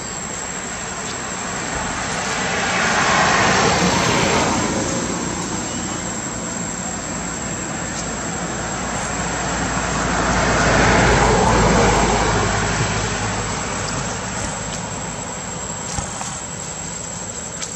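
Two road vehicles passing one after the other, each swelling up and fading away over a few seconds, the second louder with a low engine hum, over steady outdoor background noise.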